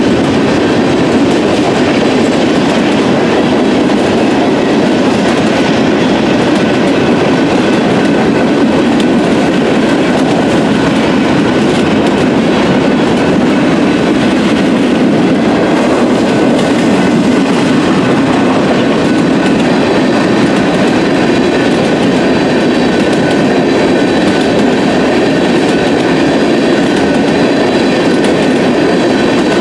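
Freight train of tank cars and boxcars rolling past at a grade crossing. The wheels rattle steadily and loudly over the rails, with no change through the passage.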